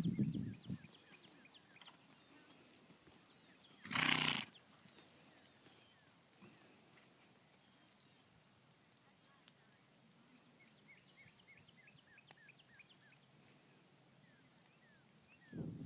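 Quiet open-air background with faint, short high chirps of small birds scattered through it, thickest near the end, and a single brief loud burst of noise about four seconds in.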